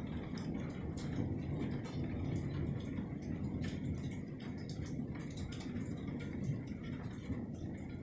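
Rain during a thunderstorm, with scattered drops ticking close by over a steady low rumble.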